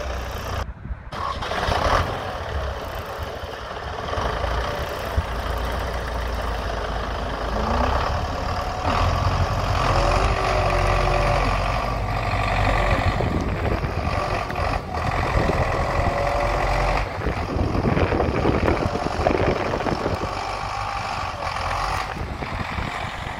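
MTZ Belarus tractor's diesel engine running steadily under load while it pulls a tree out by the roots on a cable. Short squeaky whining glides come through now and then, and the sound drops out for a moment about a second in.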